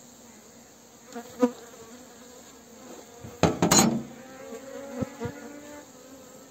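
Honeybees buzzing inside an opened hive, a low steady hum that grows louder in the second half, with sharp clacks and knocks of hive parts being handled, the loudest a cluster about three and a half seconds in. The buzzing shows the colony is still well populated despite showing no flight activity.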